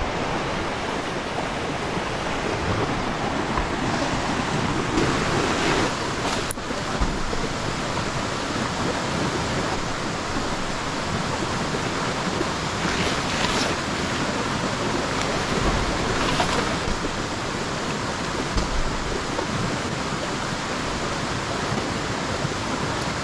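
Steady rushing of a river flowing over a small waterfall cascade, with a few brief soft rustles now and then.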